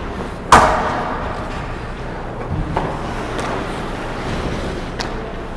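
Ice hockey play close to the goal in an indoor rink: a loud, sharp crack about half a second in that rings through the arena, followed by a few lighter knocks over a steady rink background.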